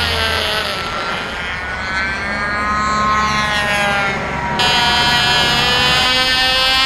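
A Cox TD .049 two-stroke glow engine running flat out on a control-line model airplane in flight. Its high-pitched whine rises and falls as the plane circles past, with an abrupt change in the sound about four and a half seconds in.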